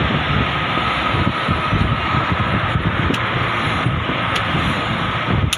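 Steady road and wind noise from a moving vehicle, with wind buffeting the microphone in an uneven low rumble and a thin steady whine above.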